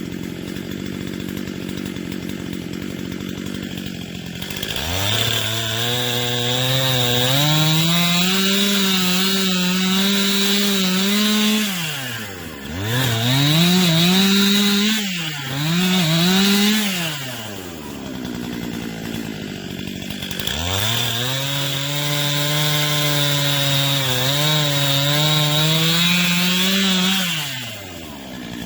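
Chainsaw idling, then opened up to full throttle three times: about seven seconds of cutting, a shorter stop-start burst, and another seven seconds of cutting, dropping back to idle in between. The pitch sags a little and recovers while the chain is in the wood.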